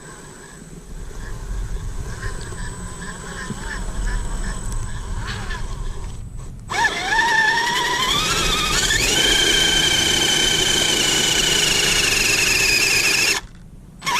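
An RC truck's electric motor whining. About six and a half seconds in, the whine rises in pitch for a couple of seconds, then holds steady and cuts off sharply near the end. Before that there is a lower rumble with faint regular ticks.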